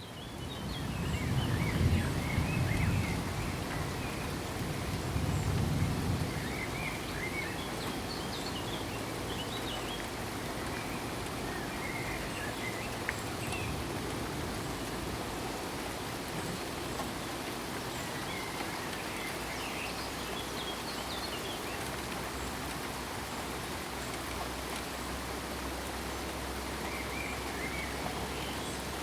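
Steady rain falling, fading in at the start, with two low rumbles of thunder in the first six seconds.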